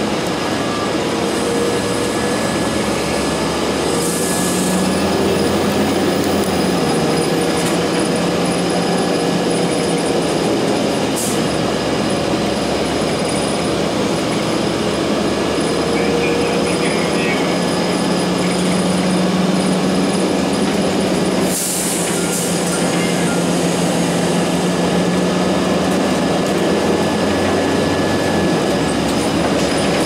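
Inside a 2002 Blue Bird CS transit bus on the move: its Cummins ISC diesel engine and Allison B400R automatic transmission drone steadily under road and tyre noise, with a few brief rattles.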